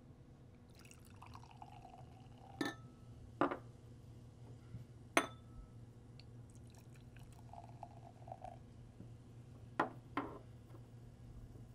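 Sparkling cider poured from a bottle into glass tumblers, in two separate pours with the gurgling pitch of the filling glass. About five sharp glass clinks come between and after the pours.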